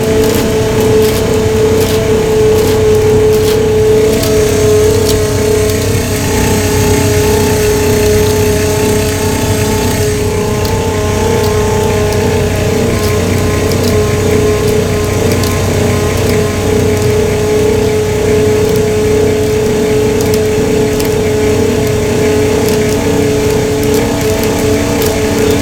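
Fishing boat's engine and hydraulic hauling gear running steadily as the urchin drag is winched back aboard: a loud, even drone with a constant pitched whine.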